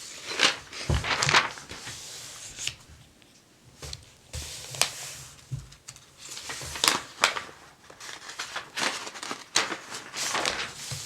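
Paper catalog pages rustling and crinkling as they are handled and turned, with scattered short sharp clicks and swishes.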